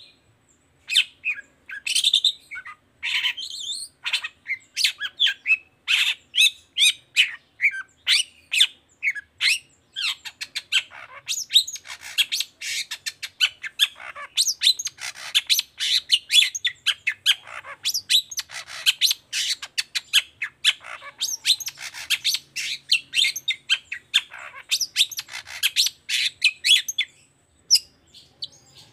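Long-tailed shrike singing a fast, busy song of short harsh notes and chirps, the run growing denser about ten seconds in and stopping shortly before the end.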